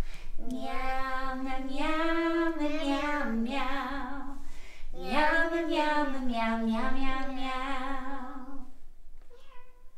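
A voice singing a wordless tune in two long, sliding phrases, trailing off near the end.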